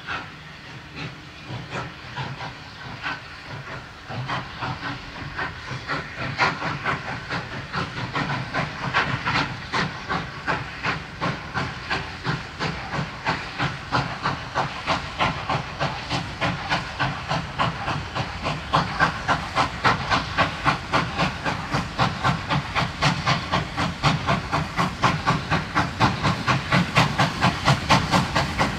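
Two Victorian Railways K class 2-8-0 steam locomotives, K190 and K153, double-heading a train away from a stand. Their exhaust beats quicken and grow louder as the train gathers speed and comes closer, over a steady hiss of steam.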